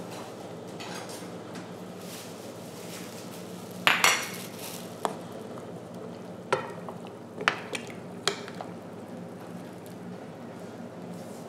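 Wooden spoon stirring soup in a stainless steel pot, knocking against the pot several times. The loudest is a double knock about four seconds in, and the rest follow singly over the next few seconds, over a steady low hum.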